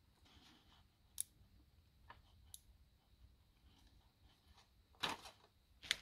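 Faint small clicks of plastic and metal parts being handled as a crimped contact is pushed into a miniature Deutsch DTM connector plug, then a louder short rustle about five seconds in and another just before the end.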